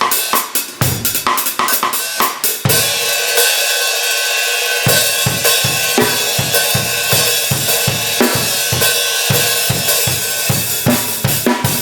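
Drum kit played with Zildjian 13" A Custom Mastersound hi-hats, alongside kick and snare. About two and a half seconds in, the drums stop and a cymbal is left ringing for about two seconds. The beat then comes back in under a continuing cymbal wash.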